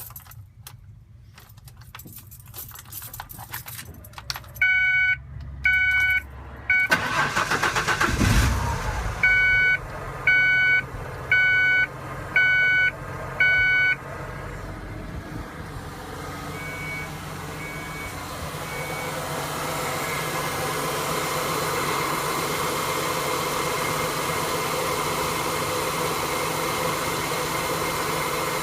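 1974 Ford F100's fuel-injected engine being started: faint key clicks, three short electronic beeps, then the engine cranks and catches about eight seconds in. Five more beeps follow, about a second apart, and the engine settles into a steady idle that grows louder and levels off. The idle is rough, the problem that followed the truck's EFI swap.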